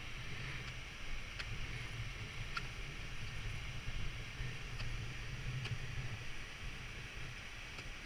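Wind buffeting an action camera's microphone outdoors: a steady, uneven low rumble with a hiss over it. About half a dozen faint sharp ticks are scattered through it.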